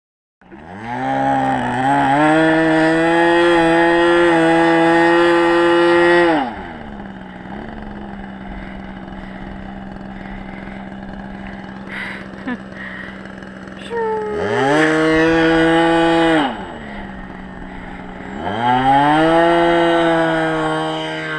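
Great Planes Corsair RC model airplane's engine running up. It climbs to high revs about half a second in and holds there, drops back to a steady idle around six seconds in, opens up again briefly about fourteen seconds in, and revs up once more near the end: throttle run-ups before the plane's maiden takeoff.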